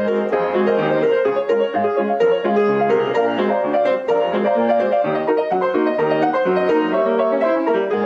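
Background music: a tune of quick, short piano notes at a steady loudness.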